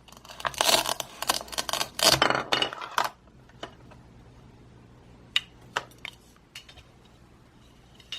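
Velcro play-food green bell pepper being cut apart with a plastic toy knife: two rasping velcro rips in the first three seconds, then a few light plastic clicks and taps on the cutting board.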